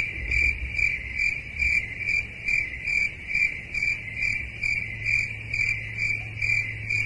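Cricket chirping, one steady high trill pulsing about three times a second, the 'crickets' gag for an awkward silence.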